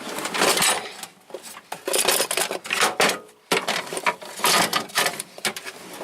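Metal hand tools clinking and clattering in a steel tool box drawer as they are picked up and moved around, in a series of uneven bursts.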